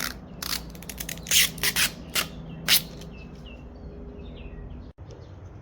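Protective backing being peeled off an adhesive car badge: a run of short crackling rips, loudest between about one and a half and three seconds in. Small birds chirp in the background.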